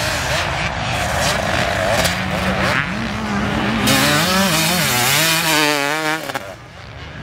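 Dirt bike engine revving on track, its pitch rising and falling with the throttle. Around two-thirds of the way in the pitch wavers quickly up and down, then the sound drops away near the end.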